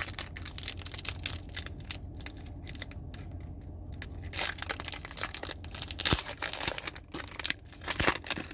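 Foil wrapper of a Pokémon trading card booster pack being torn open and crinkled: irregular crackling, with louder rips about four and a half, six and eight seconds in.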